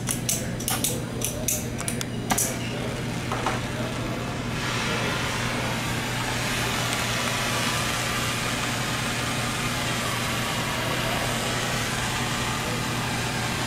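A few clicks and knocks in the first couple of seconds, then, about four and a half seconds in, the steady hiss of a gas torch flame heating a copper pipe joint to sweat-solder a valve on, over a low steady hum.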